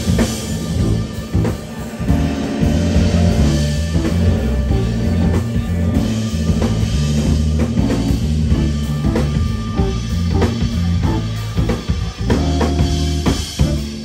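Live band playing an instrumental groove: drum kit, bass line and keyboard, with electric guitar and saxophone in the band.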